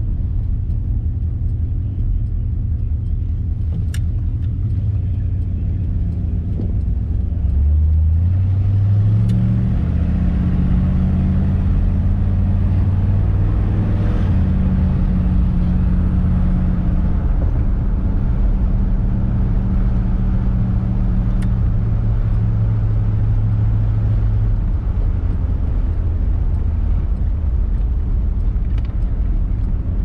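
1957 Ford Thunderbird's Y-block V8 engine running as the car is driven. About eight seconds in, the engine pitch climbs in steps under acceleration, then holds steady at cruise, and it eases off again near the end, with road noise throughout.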